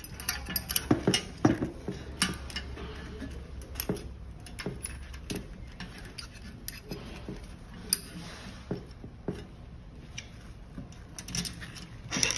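Irregular metal clicks, taps and knocks as an ignition needle assembly is fitted into a sheet-metal burner housing. The loudest knocks come about a second in, with another cluster near the end.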